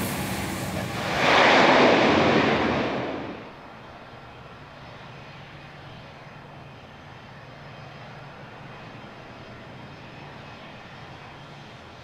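Airplane engines at an airport: a loud rush of engine noise that swells about a second in and falls away by about three and a half seconds, leaving a quieter steady hum.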